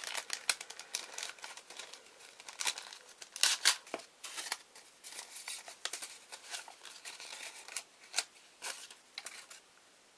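Clear plastic bag crinkling and rustling as hands open it and slide out a paper-backed photo-etch fret, in a string of short sharp crackles, the loudest a few seconds in.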